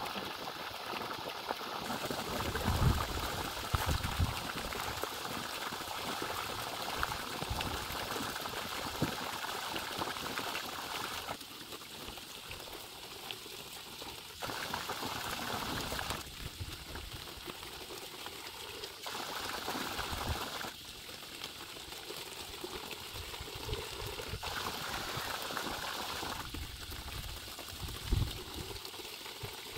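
Water gushing from the discharge pipe of a newly installed electric pump, splashing onto the ground and pouring into a plastic bucket held under the stream. The splashing grows louder and quieter every few seconds as the bucket is held under the flow.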